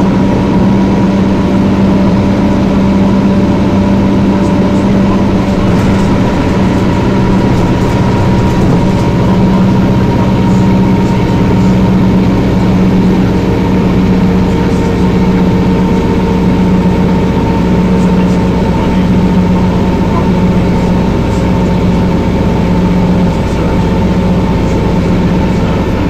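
Detroit Diesel Series 50 four-cylinder diesel of a 1994 TMC RTS transit bus running steadily and loud: a deep engine drone with a steady high whine over it, and a second, middle whine joining about halfway through.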